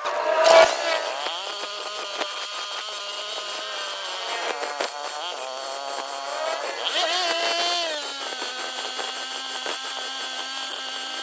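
Power tool motor running steadily, its pitch rising near the start and stepping down twice later on.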